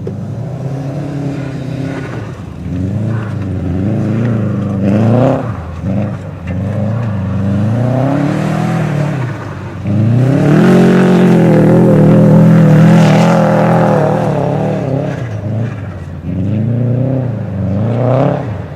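Car engine revving hard while the car is driven sliding through mud. The revs climb and drop several times and are held high and loudest for about four seconds in the middle.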